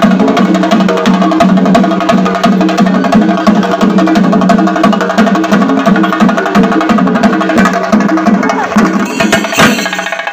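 Shinkarimelam ensemble of chenda drums and cymbals playing a fast, dense, even rhythm over a steady low tone. The playing breaks off with one loud final stroke near the end.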